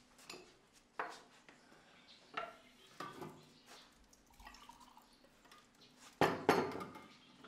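Several separate clinks and knocks of crockery, with the two loudest strikes close together near the end.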